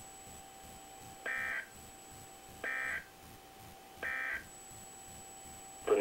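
Emergency Alert System end-of-message signal from a NOAA Weather Radio broadcast: three short SAME data bursts, each about a third of a second long and about a second and a half apart, closing the warning. Played through a computer's speakers.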